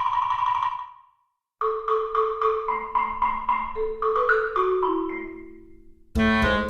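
Background music: a light tune of struck mallet notes like a marimba or xylophone, at about four notes a second over held lower notes. It breaks off for a moment about a second in, and a fuller, louder passage begins near the end.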